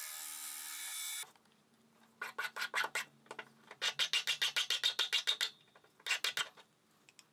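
A milling machine's cutter taking a steady cut across the top of a mild-steel block, which stops abruptly about a second in. Then a hand file rasping in quick, short strokes across the edge of the mild-steel tool holder, deburring it, in three runs with brief pauses between.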